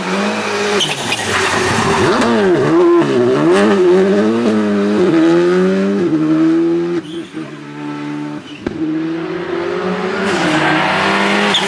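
Škoda Fabia Rally2 rally car's turbocharged four-cylinder engine revving hard, its pitch climbing and dropping repeatedly through gear changes and lifts, with a quieter stretch past the middle before it rises again near the end. Tyres hiss as they throw up spray from the wet road.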